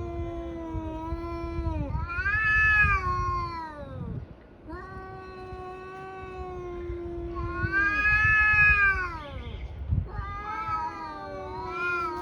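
Tabby cats caterwauling at each other: long, drawn-out yowls that swell louder and rise in pitch, then fall away. There is a brief break about four seconds in. These are the threat yowls of two cats in a territorial standoff before a fight.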